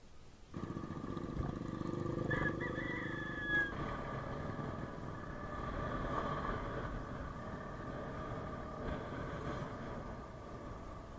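Yamaha Mio Sporty motor scooter running steadily, with a short high, wavering cry about two seconds in.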